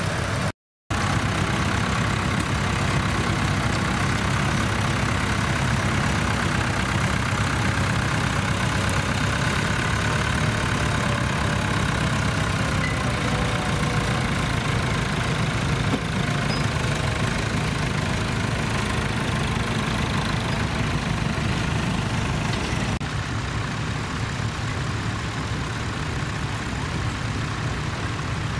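Tractor engine running steadily. The sound cuts out for a split second just after the start, and about 23 seconds in it shifts to a slightly quieter, duller engine sound.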